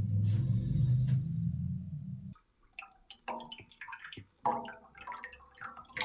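A low rumbling drone that cuts off suddenly about two seconds in, followed by irregular water drips and small splashes plinking in a washbasin.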